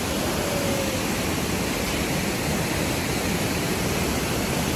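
Steady rushing of a large waterfall swollen with rainy-season water.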